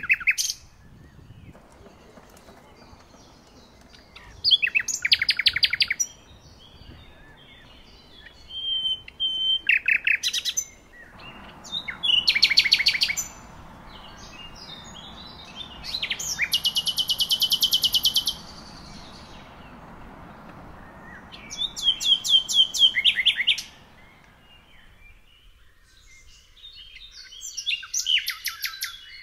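Songbirds singing: short, fast trilled phrases of rapidly repeated high notes, about six of them, a few seconds apart, over a faint steady background hum.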